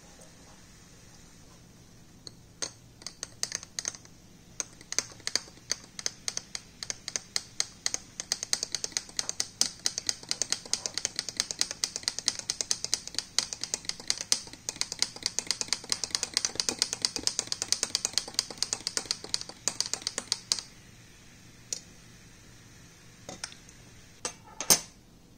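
Metal spoon stirring a glass of homemade soda, clinking rapidly and unevenly against the glass for about eighteen seconds before stopping. A few single clinks follow near the end, one of them sharper and louder.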